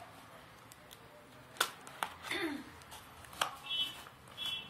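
Cardboard shipping box being slit open with a small blade and handled: two sharp clicks or knocks with short bursts of scraping and rustling between them.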